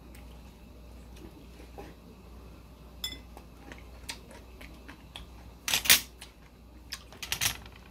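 Metal chopsticks clicking faintly against a ceramic bowl, with a sharper click about three seconds in. Near the end come two louder clattering spells of dishes being handled, a second or so apart.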